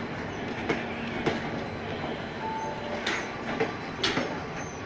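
Passenger train on the station tracks, giving a steady rumble broken by a few sharp, irregular clicks.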